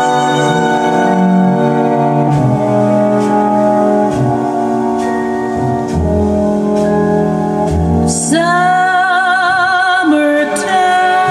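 Recorded classical music played over a hi-fi system through small Rogers LS3/5A loudspeakers: long held instrumental notes, then a solo singer with a wide vibrato coming in about eight seconds in and holding long notes.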